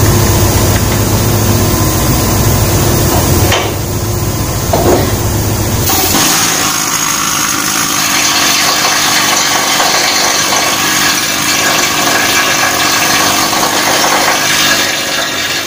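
Hand-held power chipping tool rattling continuously against a ship's steel gangway, knocking off rust. The noise is a heavy, fast low rattle for the first six seconds or so, then turns brighter and hissier.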